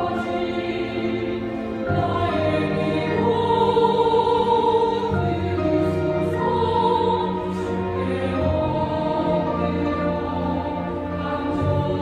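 Mixed church choir singing a slow anthem in Korean with string orchestra and piano accompaniment, in long held chords that change every few seconds over a sustained bass line.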